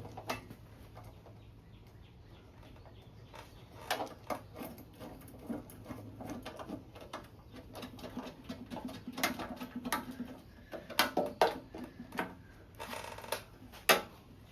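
Scattered light clicks and clinks of oil-pan bolts, washers and hand tools being handled and set on the engine, irregular, with the loudest clink near the end.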